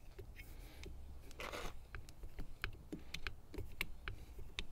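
Lever-action grease gun being pumped into a grease fitting on an outboard motor: a run of sharp clicks from the lever, a few a second and unevenly spaced, with a short hiss about a second and a half in.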